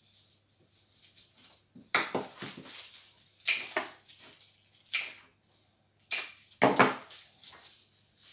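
Sharp snips of plant stems being cut, five in about five seconds, with leaves rustling between them as the greenery is handled.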